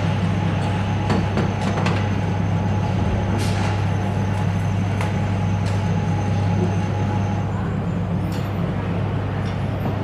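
Assembly shop ambience: a steady low machinery hum with scattered knocks and short bursts of hiss. A faint thin tone runs through the first two-thirds.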